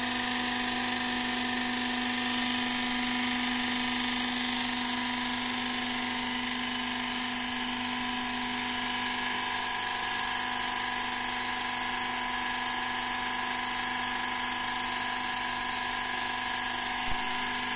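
Hydraulic drive of a steel plate flipping machine running with a steady whine as its arms slowly tilt. A short click sounds near the end.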